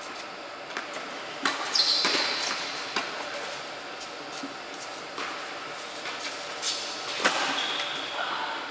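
Tennis balls struck by rackets and bouncing on an indoor hard court: sharp pops every second or two that echo around a large hall, with a couple of brief high squeaks.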